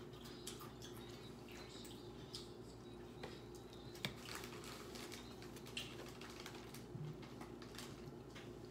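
Quiet eating sounds: scattered small wet clicks and smacks of chewing and of fingers pulling meat off a rotisserie chicken, over a low steady hum.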